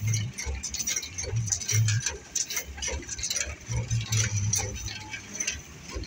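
Irregular clicking and clinking of loose stone chips on a road surface being swept and walked on, over a low, uneven engine rumble.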